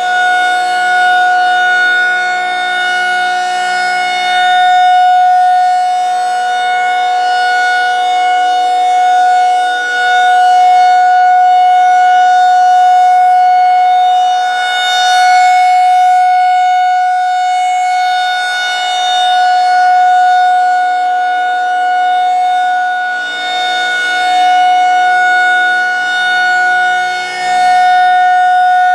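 Federal Signal 2001-SRNB rotating electromechanical outdoor warning siren sounding its full alert: one loud, steady tone. The tone swells and fades every several seconds as the horn sweeps round.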